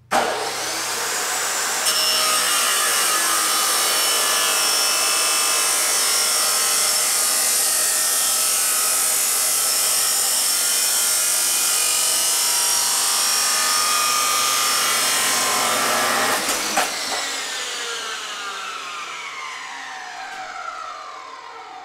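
Abrasive chop saw starting up and cutting through 3-inch mild steel exhaust pipe: a loud, steady whine and grind for about sixteen seconds. Then the cut ends and the disc spins down, its whine falling in pitch.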